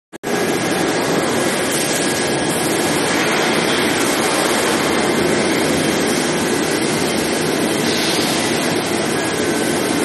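Steady loud machinery noise of a steel pipe induction heat-treatment line running, a continuous even roar with faint high steady tones over it.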